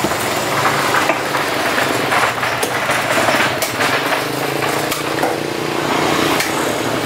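A motor engine running steadily in the background, with short scattered scrapes and taps from a knife working on a giant trevally on a wooden chopping block.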